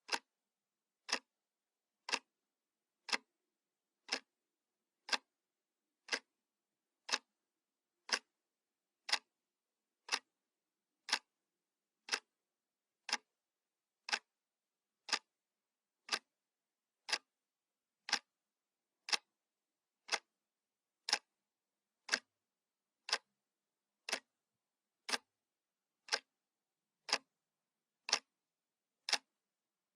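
Analog clock ticking steadily, one sharp tick a second, with silence between the ticks.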